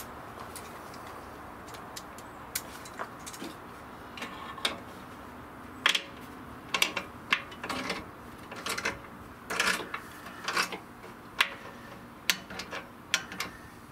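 Adjustable wrench clinking on the nut and steel bracket as it is tightened: a scatter of short, sharp metallic clicks, sparse at first and coming thicker from about halfway through.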